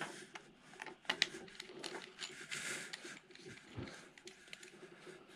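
Faint handling noises of a coiled coaxial cable and its metal connectors being picked up and moved: scattered light clicks, a sharper click about a second in, and a brief soft rustle a little later.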